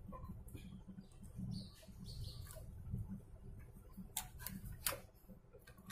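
Light plastic clicks and short scraping as the circuit board is worked loose from the opened plastic casing of a power adapter, with a few sharper clicks about four seconds in.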